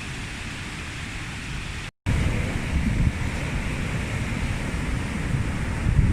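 Storm-driven surf and strong wind buffeting the microphone, an even rushing noise heaviest in the low end. It cuts out for an instant about two seconds in and returns louder and gustier.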